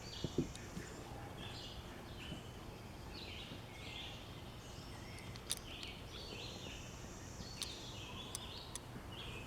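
Faint birdsong: several songbirds chirping and calling in the background. A few light, sharp clicks come in the second half.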